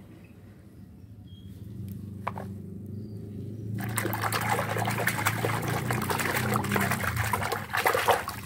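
Water sloshing and splashing as a hand vigorously scrubs a toy figure in a plastic basin of soapy, muddy water, starting about four seconds in.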